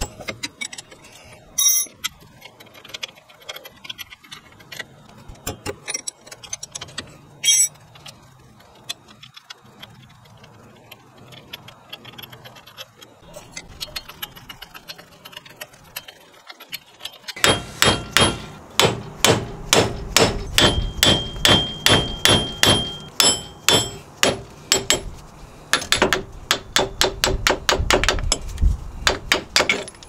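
Light metallic clicks and clinks of bolts and tools being worked, then about halfway through a steady run of hammer blows on metal, about two or three a second, each one ringing, with a brief pause near the end. The hammering knocks the front wheel hub bearing assembly loose from the steering knuckle.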